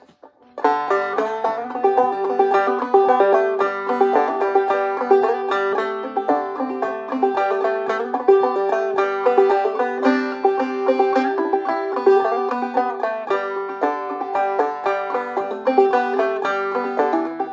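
A walnut and ebony five-string banjo being played: a tune of quick plucked notes with one high note ringing again and again as a drone, starting about half a second in.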